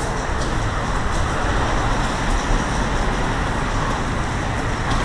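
Steady road traffic noise from cars passing on a busy roadway.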